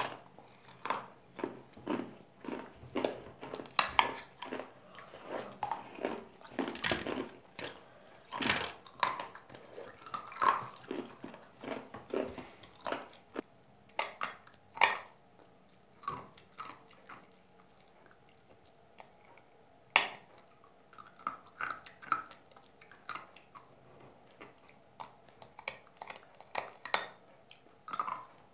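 Ice being bitten and chewed up close: many sharp, irregular crunches, coming thick and fast for the first half and more spread out after that.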